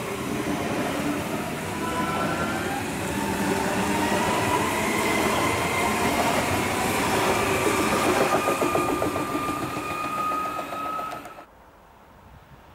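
An S-Bahn electric multiple unit running past on the rails. Its traction motors give a high whine that rises slowly in pitch, over a rumble and rattle of wheels on track. The sound cuts off suddenly near the end, leaving faint wind.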